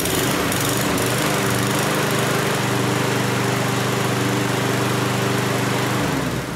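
Walk-behind lawn mower's small engine running steadily at speed, then shut off about six seconds in and winding down.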